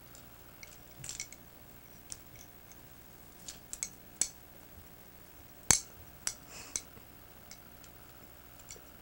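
Quiet room with a faint steady hum and scattered small clicks and rustles of off-camera handling, the sharpest click a little after halfway through.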